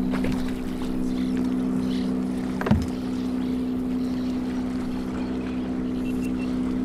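Boat motor running with a steady, even hum, and one short thump about two and a half seconds in.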